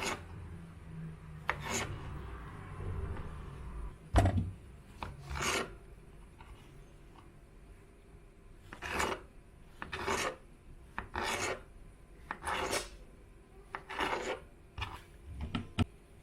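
Repeated rasping, rubbing strokes across a surface, each short and separate, coming about once a second with a pause midway.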